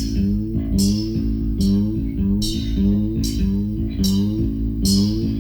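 Instrumental rock passage with no singing: a repeating picked guitar figure over bass guitar, with a sharp drum hit on each beat a little more than once a second.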